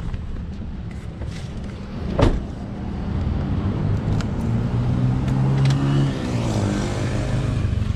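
A car door slams shut once about two seconds in, over a running car engine that dips and rises in pitch near the end. A few light clicks follow as a key turns in the car's door lock.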